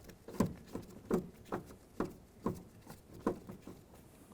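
Phillips screwdriver backing a screw out of the plastic interior door handle, with short squeaky clicks about twice a second as the screw turns.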